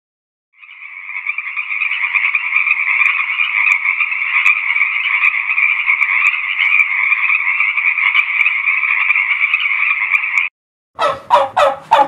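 Frogs calling in one continuous chorus for about ten seconds, which then cuts off suddenly. About a second before the end, a turkey starts gobbling.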